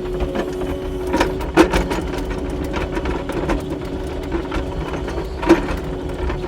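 Kubota SSV65 skid steer running while plowing snow: a steady engine and hydraulic hum under a rapid, irregular clatter of knocks and clanks from the machine and its over-the-tire tracks, with two louder bangs about a second and a half in and about a second before the end.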